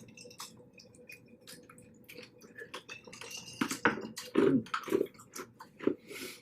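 Eating seafood-boil crab: chewing and wet mouth sounds with many sharp clicks. The sounds are sparse at first and thicker and louder from about halfway through.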